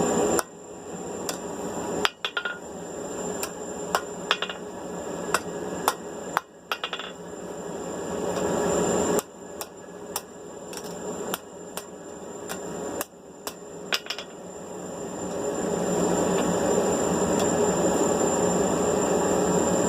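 Hammer tapping a marking tool against the steel tong reins to scribe the bend lines. The sharp metallic strikes come irregularly, some in quick pairs, and stop about fourteen seconds in, over a steady background rush of shop noise.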